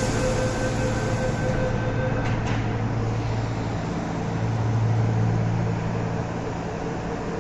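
MTR M-train subway train at the platform: a door-closing warning tone sounds, then the doors shut with a couple of knocks about two and a half seconds in. The train's traction motors then hum as it pulls away, growing loudest about five seconds in before easing off.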